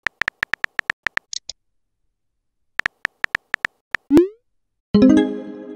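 Phone texting-app sound effects: rapid keyboard tap clicks, a pause, then more tapping, followed by a short rising swoosh as a message is sent. Near the end a bright electronic chime rings and fades.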